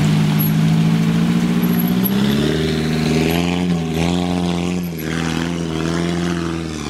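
Small 4x4's engine pulling hard under load as it fords a river and climbs out up a muddy bank. Its pitch steps up about two seconds in and wavers as it climbs, with a brief dip near five seconds. Water splashes from the tyres.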